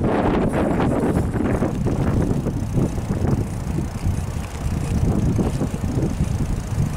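Bicycle ride over cracked asphalt: a steady low rumble of tyres on the rough surface mixed with wind buffeting the microphone.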